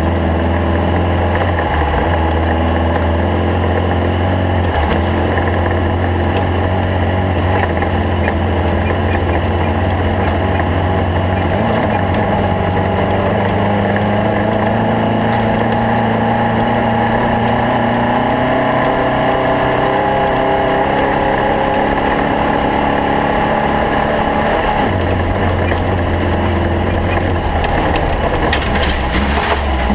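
Stock VW Beetle race car's air-cooled flat-four engine running hard under load, its note changing as the car speeds up and slows, with a clear change in engine pitch about twelve seconds in and again near the end.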